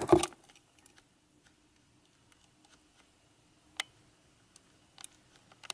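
A quiet room with a faint steady hum and a few scattered small clicks, the clearest about four seconds in.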